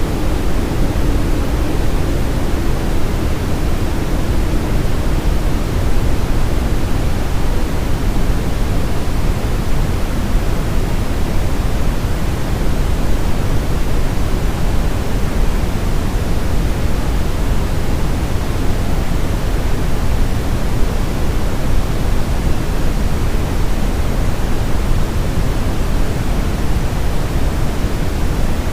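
Steady brown noise: an even, deep rushing hiss, heaviest in the bass and without breaks or events. A faint low hum blends in at the start and fades out within the first few seconds.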